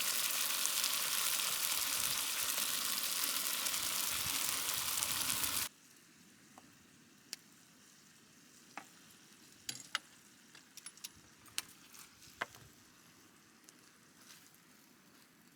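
Food sizzling loudly as it fries on a hot pan or grill, cutting off abruptly a little over a third of the way in; after that, only faint scattered ticks and clicks.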